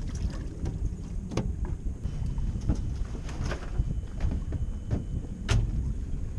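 Wind buffeting the microphone on a small boat in choppy water, with several sharp knocks, the loudest about five and a half seconds in.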